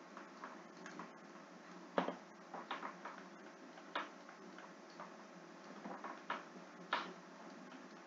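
Irregular light clicks and taps of a stylus on a tablet screen as words are handwritten, over faint hiss; the sharpest taps come about 2 seconds in and near 7 seconds.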